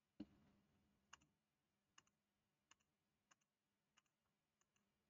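Faint computer mouse clicks, mostly in close pairs about every two-thirds of a second, after a soft low thump just after the start.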